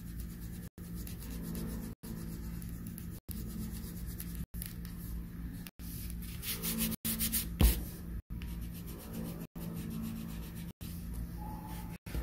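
Green colouring pencil shading back and forth on paper: a steady scratchy rubbing over a low hum, with one louder thump about two-thirds of the way through. The sound drops out briefly about every second and a quarter.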